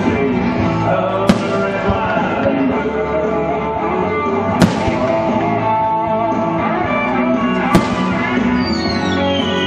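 Rock music with guitar plays steadily, broken by sharp bangs of aerial firework shells bursting about a second, four and a half and nearly eight seconds in. A falling whistle comes near the end.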